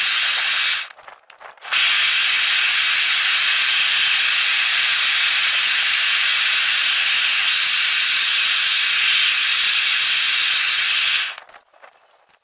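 Gas burner of a Devil-Forge melting furnace running at full flame with a loud, steady hiss while copper melts in the crucible. The sound drops out briefly twice, about a second in and near the end.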